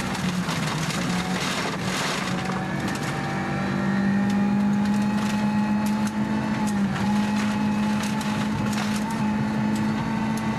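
Inside the cabin of a Mitsubishi Lancer Evo IV rally car at full speed: the turbocharged four-cylinder engine is held at high revs and climbs slowly, with a brief dip about two-thirds through. Gravel rattles and crackles against the underbody throughout.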